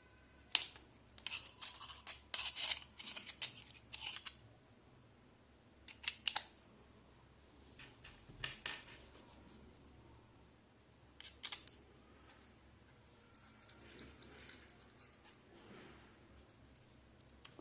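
Clicks and scrapes of hands working a handheld gimbal's battery compartment and fitting 18350 batteries, in scattered bursts, busiest in the first few seconds.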